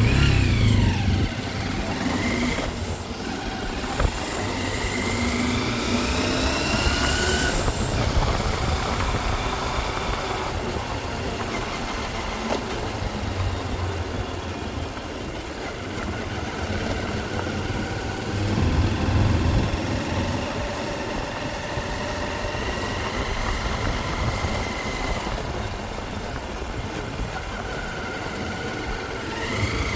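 A motor vehicle engine running on the move, its pitch rising and falling several times as it speeds up and slows down, over steady road noise.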